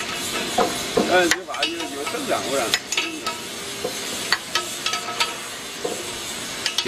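Scattered metal clicks and taps of a spanner on the hex bolts of a winch drum's wire rope clamp plate as they are tightened, over a steady hiss.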